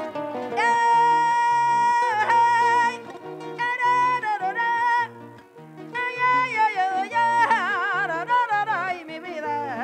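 Folk music in the torrente style: a high wordless lead line of long held notes that slide between pitches and waver near the end, over plucked-string accompaniment with a steady bass.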